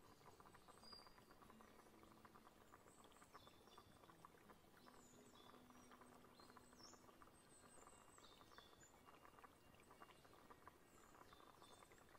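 Near silence: a very quiet ambient bed with scattered faint high chirps and soft ticking.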